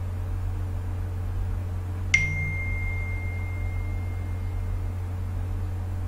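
A single high, bell-like ping about two seconds in that rings on and slowly fades away, over a steady low electrical hum.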